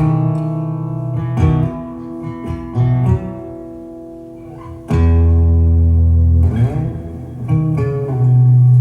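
Live guitar music in an instrumental passage of a song: plucked notes ring out, then deep, loud low notes hold for about a second and a half around the middle and come back near the end.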